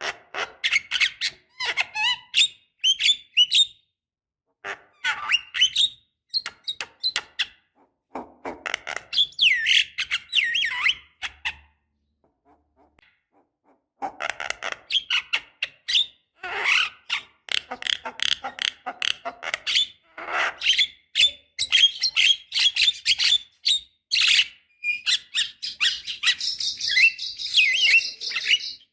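Javan myna (jalak kebo) singing: a rapid, varied run of harsh chattering, clicks and whistled notes in bursts, broken by short pauses, the longest about two seconds midway.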